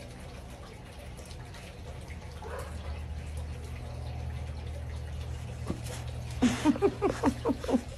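Faint steady low hum, then, from about six and a half seconds in, a quick string of short falling vocal sounds, about four a second, as a dog leaps up at the person: excited dog yips or a person laughing.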